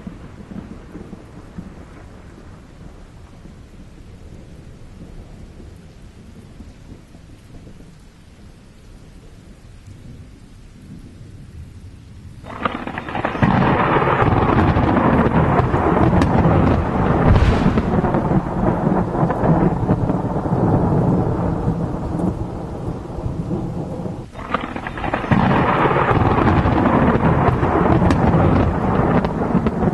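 Violent thunderstorm with rain and thunder. A low rumble at first, then about twelve seconds in it turns suddenly loud and stays heavy and rolling. It breaks off briefly about 24 seconds in and comes straight back.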